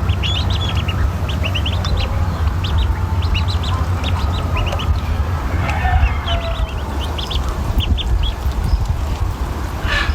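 Ducklings peeping: many short, high peeps in quick runs, over a steady low rumble.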